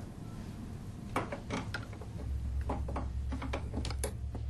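Small clicks and knocks from a gramophone's tone arm and needle being handled and set down on the record. A low steady hum comes in about two seconds in.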